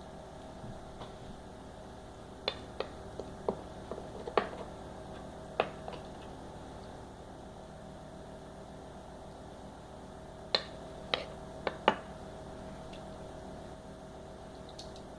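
Metal spoon clinking and scraping against a glass baking dish while spreading meat sauce: a handful of sharp clinks in two clusters, over a steady low hum.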